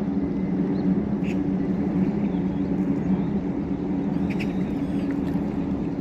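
A steady low mechanical hum over a rushing noise, like a running motor, with a few short high chirps now and then.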